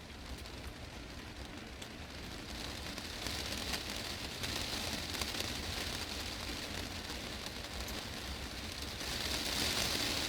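Heavy rain drumming on a glass greenhouse roof: a dense patter of drops that grows heavier about three seconds in and again near the end.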